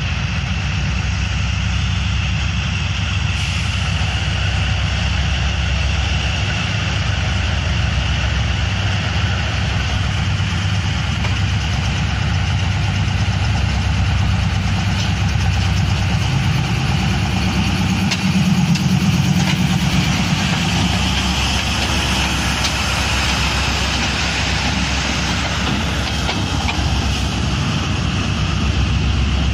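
ZCU-30 diesel-electric locomotive's engine running steadily as the locomotive rolls slowly up close: a deep drone with a steady higher hum over it, swelling briefly about two-thirds of the way through.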